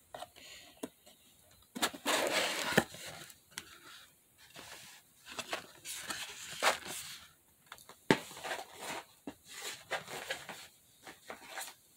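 A cardboard mailer box being opened and the nail products and plastic bags inside handled: irregular rustling and scraping, loudest a couple of seconds in, with a few sharp clicks and taps.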